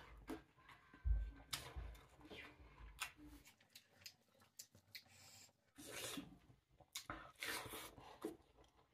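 A person eating close to the microphone: irregular chewing and smacking mouth sounds with small clicks, coming in short bursts with brief pauses between them.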